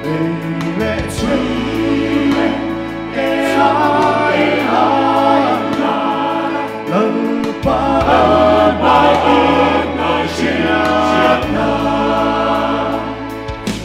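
Mixed choir of men and women singing a gospel song in parts, amplified through microphones, over sustained low bass notes that shift every few seconds.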